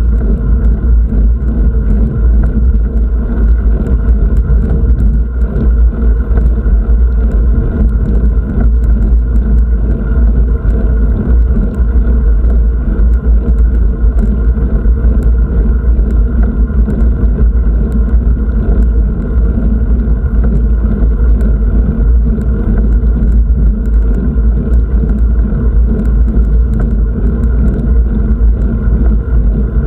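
Loud, steady low rumble of wind and road noise from travelling at speed, with no breaks or distinct events.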